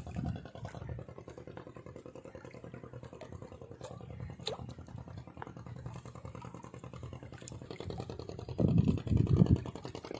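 An engine running steadily at a low hum, with louder low rumbles about two-thirds of the way through and again near the end.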